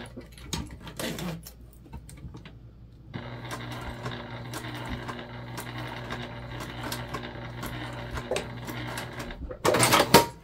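Electric sewing machine topstitching a vinyl bag: it stops briefly near the start, with a few clicks as the work is turned, then runs steadily again for several seconds. A short, loud burst of handling noise comes near the end as the bag is pulled from the machine.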